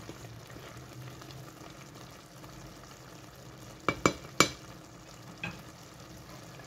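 Pot of red kabsa, rice and chicken in tomato sauce, simmering with a steady low sizzle as it nears done, stirred gently with a wooden spoon. About four seconds in, three quick knocks as the wooden spoon is tapped against the metal pot.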